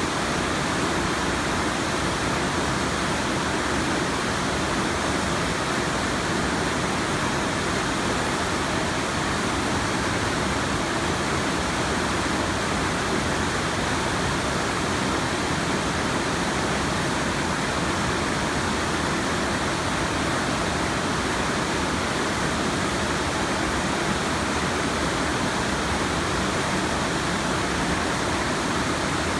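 Waterfall and creek in a gorge, running high with floodwater after hurricane rains: a loud, steady, unbroken rush of water.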